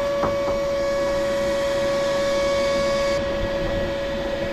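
A 2 HP shop vac running steadily with a high motor whine, sucking air through an aluminum boat-tower tube. Its upper hiss drops away about three seconds in.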